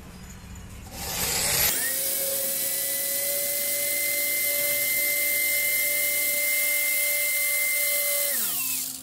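Handheld electric drill driving a screw to fasten a new desk caster's mounting plate. The motor spins up about a second in, runs at a steady whine for about six seconds, then is released and winds down with a falling pitch near the end.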